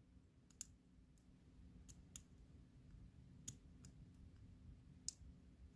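Faint, sparse metallic clicks of a hook pick working the pin stacks of a Master Lock Pro Series 6850 padlock held under tension, about six irregularly spaced ticks as the pick lifts and feels the pins.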